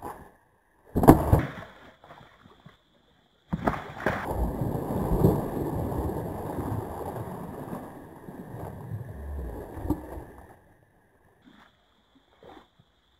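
Splashing in shallow river water as a fisherman slips in after a fish-dragged pole rod: a sharp splash about a second in, another at about three and a half seconds, then several seconds of sloshing and churning water that stops near the end.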